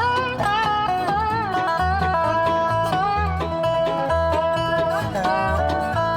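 Background string-band music with plucked-string melody notes over a steady, repeating bass beat.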